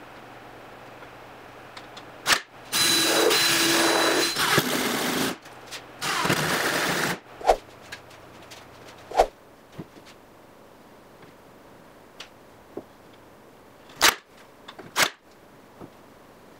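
Cordless drill driving screws into a wooden jig, running in two bursts: one of about two and a half seconds, then a shorter one of about a second, with a steady motor whine. Later, a few separate sharp knocks.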